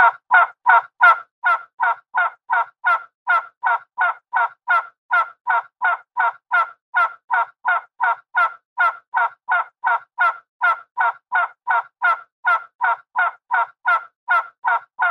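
An animal's short call repeated rapidly and evenly, about three times a second, with no let-up.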